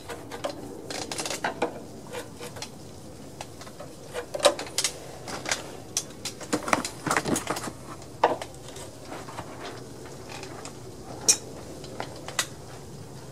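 Irregular metal clinks and knocks from an adjustable wrench working the oil drain fitting on an air compressor pump's crankcase, with a plastic oil drain pan being handled. The sharpest clicks come about four and a half and eleven seconds in.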